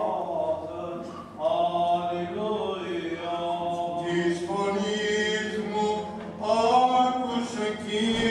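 Greek Orthodox clergy chanting a Byzantine hymn of the funeral service: male voices in long, drawn-out notes, with short breath breaks about a second in and again past six seconds.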